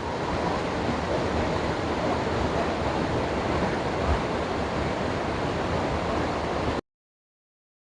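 Steady rush of falling water from a waterfall, cut off abruptly near the end.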